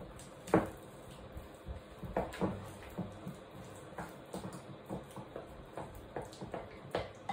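Wooden spoon knocking and scraping against a ceramic bowl while mashing and stirring a soft paste of banana, pumpkin and peanut butter: irregular knocks every half second or so, the sharpest about half a second in.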